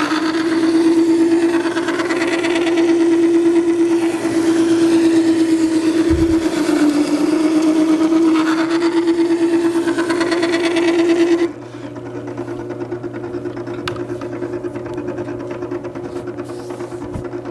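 Makita 98202 horizontal-wheel wet sharpener running with a steady motor hum while a planer knife in its jig is ground along the spinning water stone, a gritty grinding heard with the edge making contact the whole way. About eleven seconds in the grinding stops suddenly and the motor hum carries on alone.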